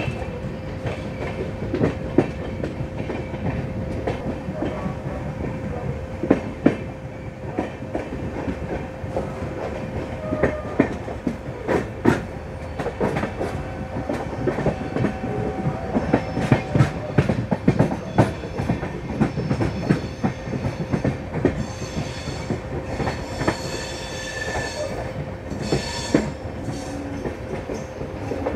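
Passenger train running, heard from its open door: wheels clacking over rail joints and points, with high wheel squeals in the second half as it takes curving track.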